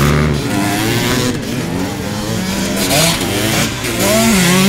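Motocross motorcycle engines revving hard, their pitch rising and falling as the riders work the throttle over a jump; more than one bike, loudest near the end.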